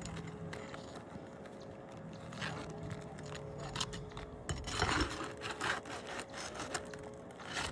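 Metal tool scraping and clicking under asphalt shingles as roofing nails are worked loose, in short irregular scrapes, the strongest about five seconds in.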